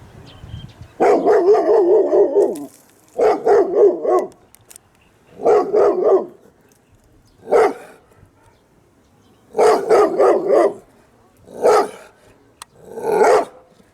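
A dog gives a series of seven drawn-out barks with a wavering pitch, with short pauses between them.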